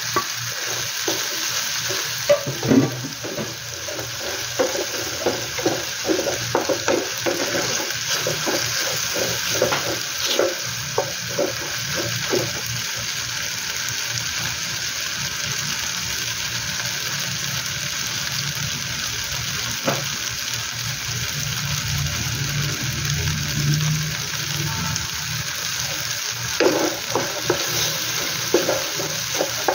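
Sliced bell peppers, tomatoes and onions sizzling in oil in a frying pan, stirred and scraped with a wooden spatula. The stirring goes on for the first ten seconds or so, stops for a while mid-way while the sizzling continues, and starts again near the end.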